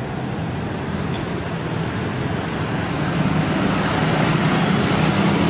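Street traffic: a steady rush of passing motor vehicles with a low engine hum, growing gradually louder.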